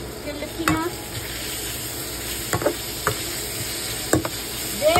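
Ground pork stir-fry sizzling in a frying pan while a metal slotted turner stirs it, with a few sharp scrapes and clacks of the turner against the pan.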